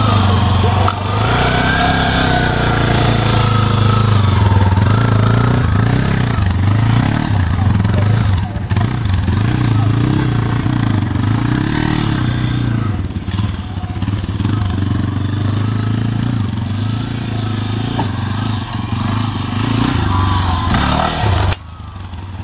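Trail motorcycle engine running at low revs, the throttle opened and closed in short swells as the bike is ridden slowly through tight turns. The sound drops away suddenly near the end.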